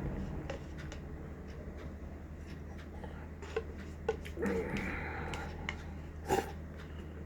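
Quiet eating sounds: scattered small clicks and chewing noises, a short noisy stretch just past the middle and a sharp click about six seconds in, over a steady low hum.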